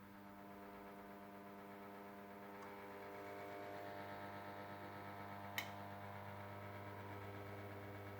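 Ariston Margherita washing machine humming steadily during its cottons 60° main wash, a low electrical drone that swells slightly over the first few seconds, with one sharp click about five and a half seconds in.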